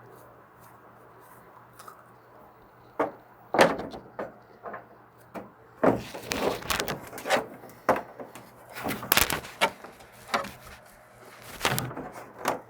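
Hard plastic knocking, clicking and creaking as a tight threaded fitting is forced by hand into a hole in a plastic hydroponic tub. The fitting is a hair too big for the hole. There are a few sharp knocks at first, then a dense run of them from about six seconds in.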